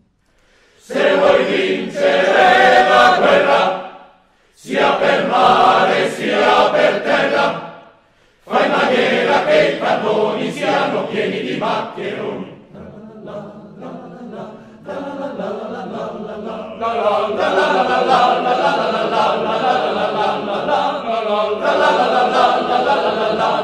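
Alpine choir singing a cappella, in phrases broken by short breaths about every four seconds. A quieter passage follows, then the choir swells louder and holds on.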